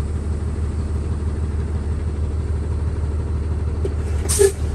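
Heavy truck's diesel engine idling steadily, heard from inside the cab, while its air compressor builds pressure in the brake air tanks. A brief, sharper sound comes near the end.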